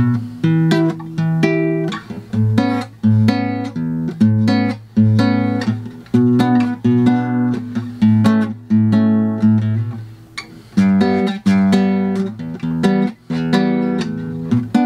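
Acoustic guitar strumming a chord progression, with sharp chord strikes about two a second, each ringing out before the next.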